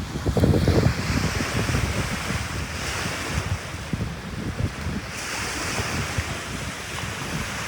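Ocean surf washing onto the beach, its hiss swelling up and fading several times, with wind buffeting the microphone, most strongly in the first second.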